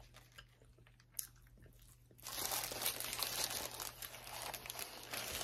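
A bite into a crunchy hard-shell taco, the shell crunching along with the crinkling of its paper wrapper. It begins a little over two seconds in, after near quiet with one small click.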